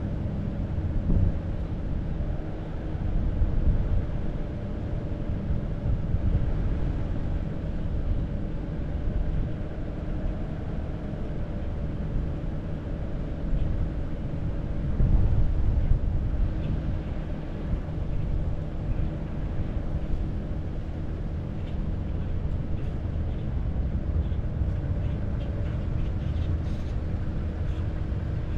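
Car driving slowly, a steady low rumble of road and engine noise with a faint steady hum, rising and falling only slightly.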